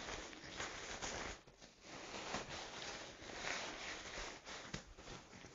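Faint, irregular rustling of a nylon waterproof jacket as it is rolled up and pushed into a backpack, the pack's fabric scraping and crinkling as it is handled.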